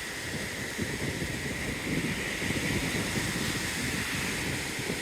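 Small sea waves washing onto the beach, a steady surf hiss with irregular low rumbling of wind on the microphone.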